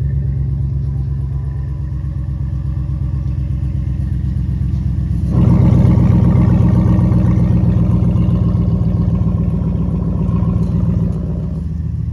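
Hemi V8 engine running through a temporarily fitted, unclamped muffler as a test of the exhaust sound. It idles, is revved up suddenly about five seconds in and held higher for several seconds, then drops back to idle near the end.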